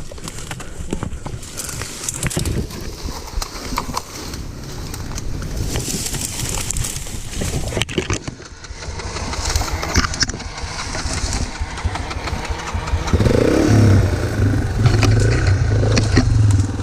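Dirt-bike engine starting close by about three-quarters of the way in, then running steadily with a rapid, even pulse. Before that there is only unsteady rustling noise with scattered knocks.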